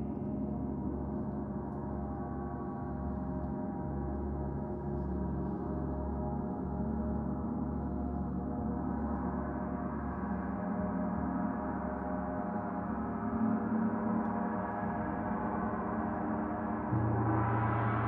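Several large gongs ringing together in a long, dense wash of overlapping tones, the low notes pulsing as they sustain. Near the end another gong is struck, adding a new deep tone.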